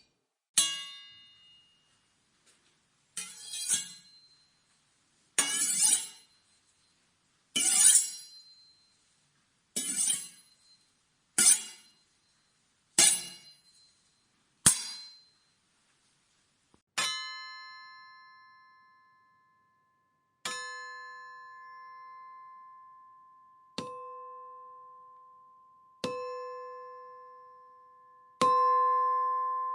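A string of sword sound effects a second or two apart: a ringing blade strike, then seven short, harsh metal-on-metal clashes, then five blade pings that each ring on with a clear tone for two to three seconds.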